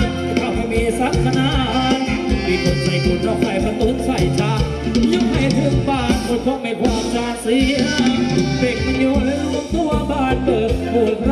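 Live Thai ramwong dance band playing upbeat dance music with a steady drum beat.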